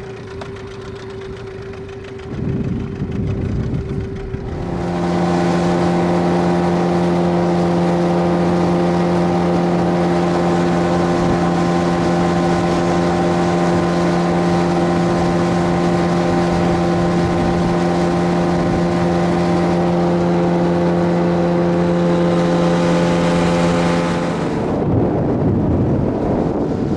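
Boat's outboard motor: running quietly at first, then throttled up about four seconds in and held at a steady speed, before dropping away near the end, leaving wind and water noise.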